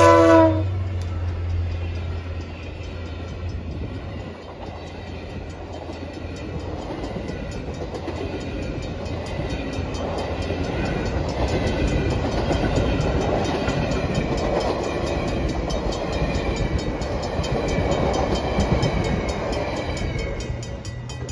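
Passenger train led by a Via Rail F40PH-2D diesel locomotive passing a level crossing. The Nathan K1L13 horn cuts off in the first half second, and the locomotive's engine passes and fades within the first few seconds. The passenger cars then roll by with steady wheel-on-rail noise that swells and eases near the end, while the Griswold mechanical crossing bell rings steadily.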